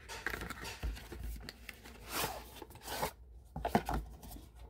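Cardboard product box rubbed and scraped in the hands as it is opened and the bottle slid out, with louder scrapes about two and three seconds in and a few light knocks near the end.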